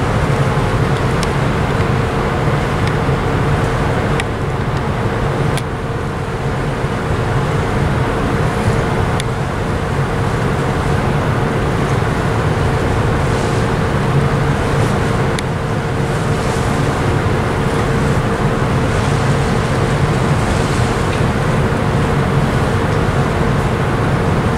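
Steady low drone of ship engines and distant port machinery, with a constant mid-pitched hum running through it and a few faint ticks.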